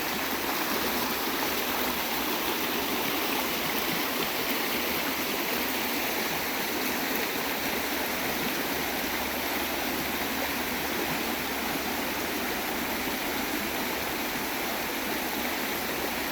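River water rushing steadily, an even continuous rush.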